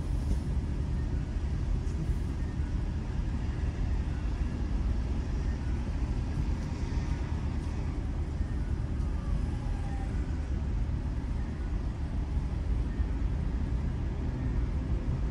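Steady low rumble heard from inside a car waiting at a city junction, with cross traffic passing in front.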